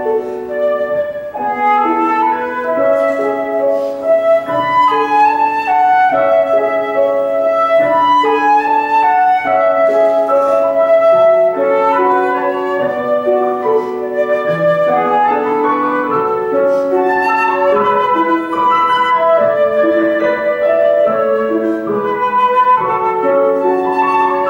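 Concert flute playing a melody of held, connected notes over grand piano accompaniment.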